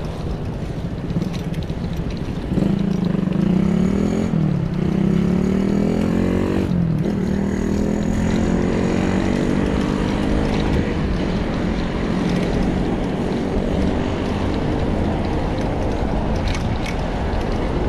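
Steady low rumble of wind and wheels rolling over brick pavers while riding. From about two and a half seconds in, a motor's drone rises in, wavers in pitch twice, and fades out after about twelve seconds.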